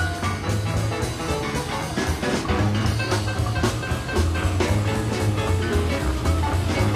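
Background music with a steady bass line and drum beat.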